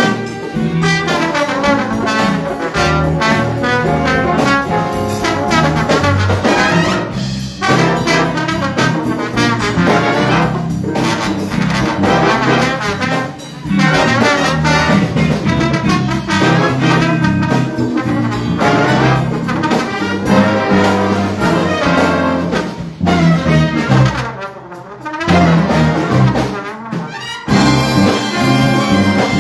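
High school jazz big band playing, with trumpets and trombones to the fore. The ensemble drops out briefly a few times between phrases.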